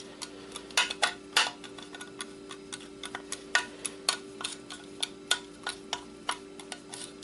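Light, irregular clicks and taps, a few a second, from a disassembled hard drive's metal parts and tools being handled, over a faint steady hum.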